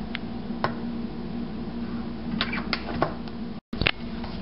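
Hand mixing and kneading soft dough in a stainless steel bowl: scattered light clicks and taps against the bowl over a steady low hum, with a brief dropout about three and a half seconds in.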